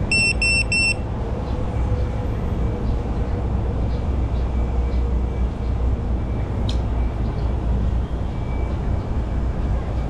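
Three quick, high electronic beeps near the start from a GEPRC Mark5 FPV drone sitting on the ground, over a steady low rumble of outdoor background noise.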